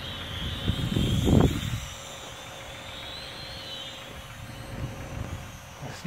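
High-pitched whine of a toy micro quadcopter's motors, wavering up and down in pitch as the throttle changes. A loud gust of wind buffets the microphone about a second in.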